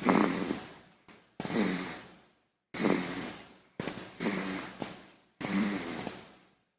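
A baby snoring: about five snoring breaths, one roughly every second and a half. Each starts abruptly and fades away.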